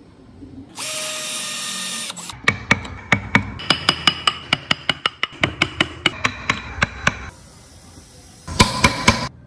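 A power tool runs briefly. Then a wood chisel is struck into a wooden block in a long run of sharp, even taps, about four or five a second. A short noisy burst with a few more strikes comes near the end.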